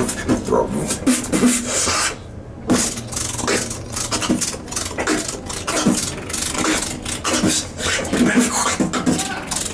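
Freestyle beatboxing: rapid mouth-made drum sounds, with kicks, snares and hi-hat-like hisses in quick succession, broken by a short pause about two seconds in.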